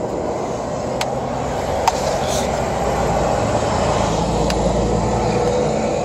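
Rumble of a passing motor vehicle, swelling about four to five seconds in, with a few faint clicks over it.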